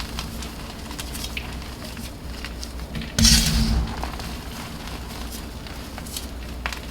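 Dyed block of BSN gym chalk being crushed by hand, crumbling with scattered small crackles and one louder crunch about three seconds in.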